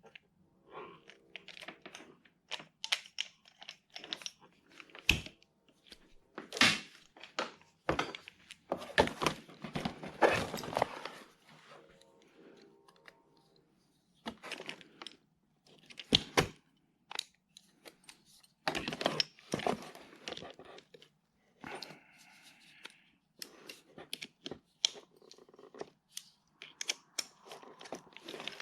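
Small tool accessories and their packaging being handled: rustling and tearing of wrappings, with irregular knocks and clicks of small hard parts being picked up and set down.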